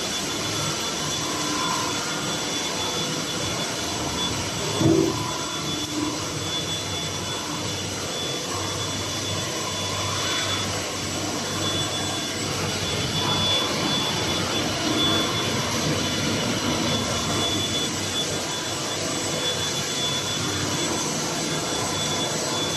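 Steady machine noise of a running plastic sheet extrusion line: drive motors and cooling fans giving an even hiss with a thin, steady high whine. There is a brief louder sound about five seconds in.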